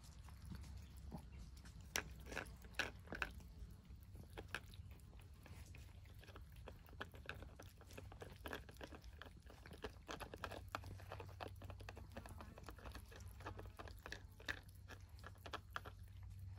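Several cats chewing wet cat food from bowls: quiet, irregular smacking and clicking, a little louder in a cluster about two to three seconds in.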